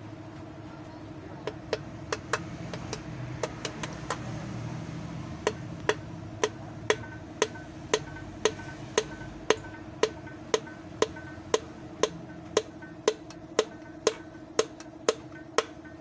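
Sharp taps or clicks, scattered at first and then settling into an even beat of about two a second, over a steady low hum.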